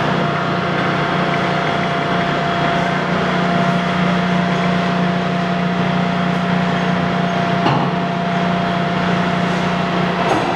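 Heavy Axelson engine lathe's 25 HP main motor and headstock gearing running with a steady hum while the spindle is stopped and shifted to a new speed. Two brief clunks, about three-quarters of the way in and near the end, come as the speed levers are moved and the drive is engaged again.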